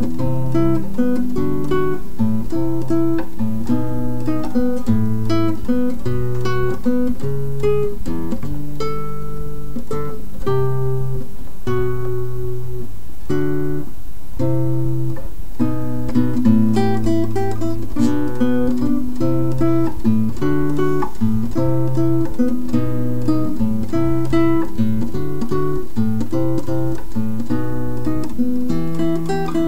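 Background music: acoustic guitar playing a plucked, lightly strummed tune in a steady rhythm over a moving bass line.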